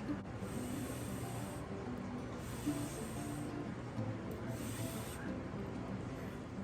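Background music with steady held notes, joined three times by a short burst of high hiss lasting about a second each.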